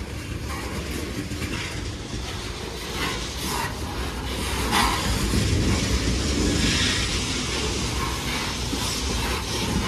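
Loaded rapid-discharge coal cars of a freight train rolling past, a steady rumble of steel wheels on rail with scattered clicks and clacks. It gets louder about five seconds in.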